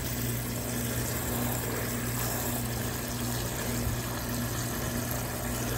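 Water running from a garden hose into a plastic bucket packed with comfrey leaves, a steady rushing hiss, with a constant low hum underneath.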